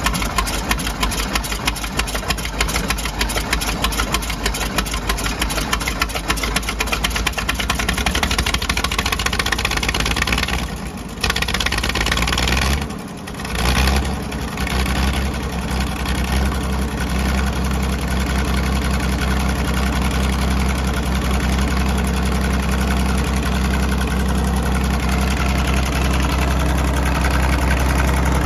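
The engine of a 1972 Iwate Fuji Sangyo T50 logging tractor, just brought back to life, running with a rapid, even beat. Its sound dips briefly twice around the middle, then it runs on steadier and heavier.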